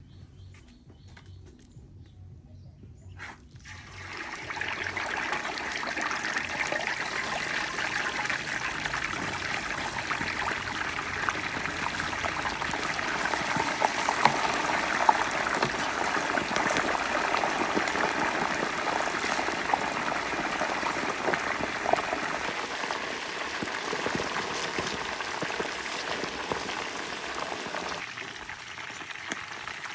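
Water running or pouring steadily, with a dense crackle of small splashes. It starts about four seconds in and eases off near the end.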